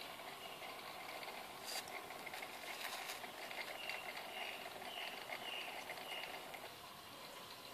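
Aquarium water bubbling and trickling steadily, with a couple of light clicks about two and three seconds in.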